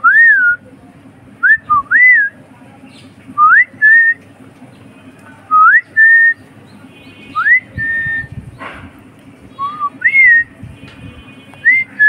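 Clear whistled calls, each a quick upward glide into a short held higher note, repeated every one to two seconds.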